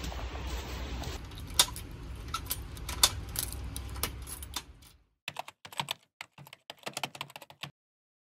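Quick runs of irregular, sharp clicks over a low rumble. The rumble cuts off abruptly about five seconds in, and the clicks carry on alone in short bursts.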